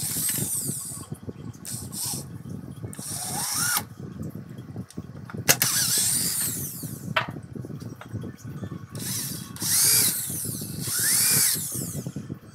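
Electric power tool run in several short bursts, its pitch rising and then falling with each run, over a steady low crackle.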